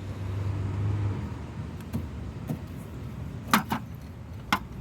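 A few sharp metallic clinks of a 10 mm wrench working the brake caliper bolts, three of them in the second half, over a low background rumble with a steady low hum during the first second.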